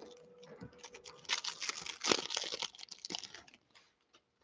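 Plastic wrapper of a football trading-card pack crinkling and tearing as the pack is opened, with cards rustling in the hands. It comes as a run of quick crinkles and clicks and stops about a second before the end.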